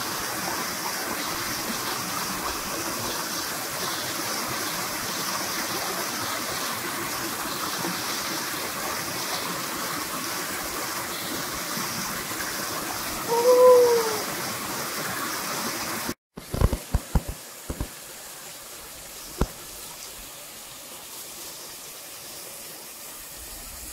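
Steady rush of a small waterfall pouring into a rock pool, with one loud, short call that rises and falls in pitch about halfway through. The water sound cuts off suddenly after about sixteen seconds, giving way to a quieter background with a few sharp knocks.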